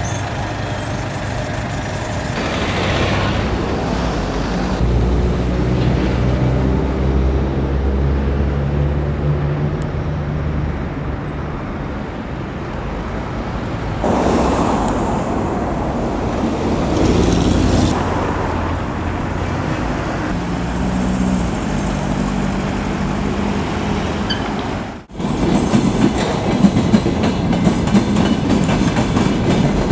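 Road traffic with vehicle engines running. About 25 seconds in, a cut brings a louder, more uneven sound: a freight train of container wagons rolling past on the tracks.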